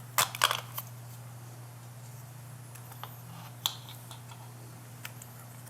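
Small clicks and taps of laptop parts being handled during the speaker's removal: a quick cluster near the start, then a few single clicks, over a faint steady low hum.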